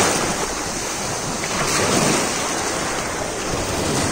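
Small sea waves breaking and washing up a pebbly shore: a steady rushing surf noise, with wind blowing over the microphone.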